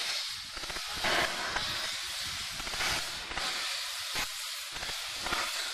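Steam locomotive hissing steadily as it vents steam, swelling briefly louder about a second in.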